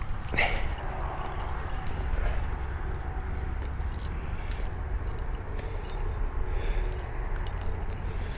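Light metallic clinks and jingles of a spinnerbait's blades and hook as it is handled in a landed largemouth bass's mouth, over a steady low rumble.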